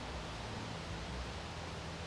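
Steady, even outdoor background hiss with no distinct sounds standing out.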